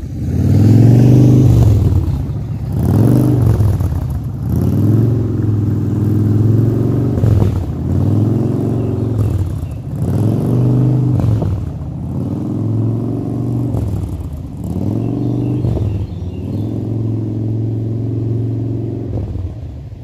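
Harley-Davidson V-twin motorcycle engines running, the pitch rising and falling in repeated swells about every two seconds.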